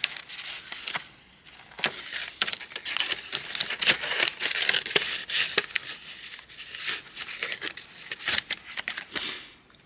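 Paper cash envelopes in a ring binder rustling and flapping as they are flipped through, with paper banknotes being handled: a continuous run of crinkles and small taps.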